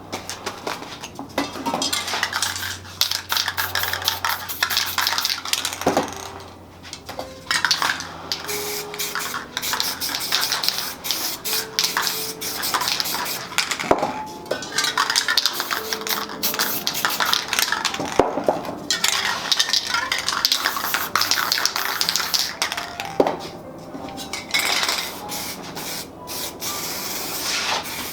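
Spray paint cans hissing in many short, rapid bursts, with the clink and clatter of metal cans and tools being picked up and set down and some scraping. Faint music runs underneath.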